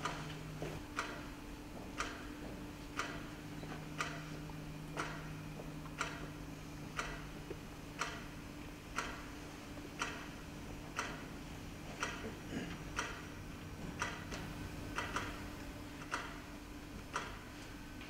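Clocks ticking about once a second, with a second, out-of-step clock's ticks falling between the first's from about halfway through, over a low steady hum.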